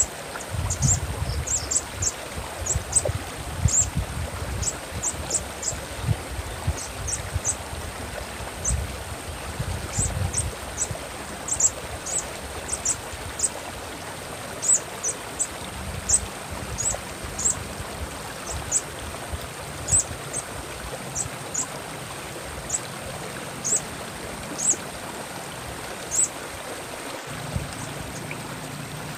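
Sunbird calling with short, sharp, very high chirps, singly and in quick irregular runs, over the steady rush of a flowing stream.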